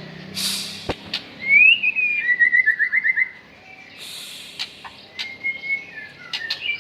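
White-rumped shama (murai batu) singing a short whistled phrase: a rising-and-falling whistle, then a quick run of rapid notes, with softer notes later. A few sharp clicks and two brief hissing bursts are mixed in.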